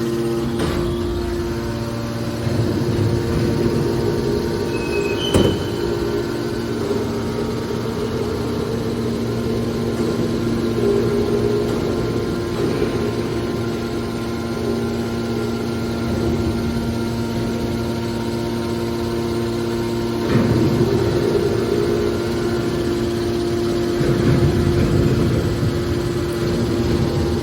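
Hydraulic aluminium baler machine running: a steady hum from its motor and hydraulic pump with low rumbling that swells now and then, and one sharp click about five seconds in.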